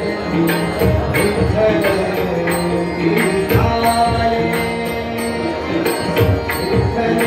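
Abhang devotional song played live: a male singer's voice over sustained harmonium chords, with tabla strokes keeping a steady rhythm.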